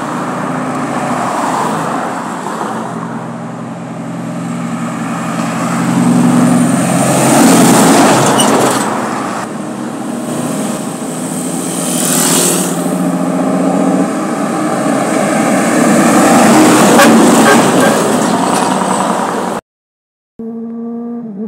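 Heavy trucks running past along a road with other traffic, engine drone swelling loudest as they pass about a third of the way in and again near the end. There is a brief hiss about halfway through, like an air brake. The sound cuts out for a moment shortly before the end.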